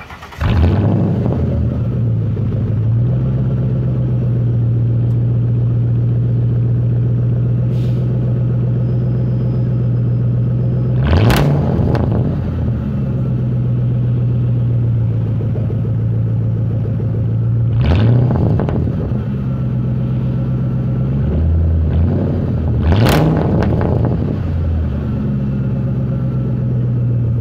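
Straight-piped 4.6 V8 of a 1999 Lincoln Town Car idling loud and steady through open exhaust, blipped into three short revs spaced several seconds apart.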